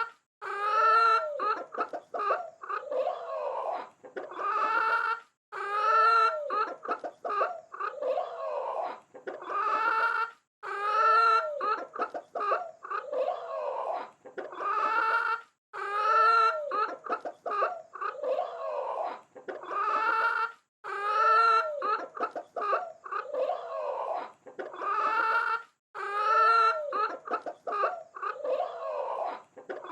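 Chickens clucking and calling, a short recording of about five seconds repeating over and over as a loop.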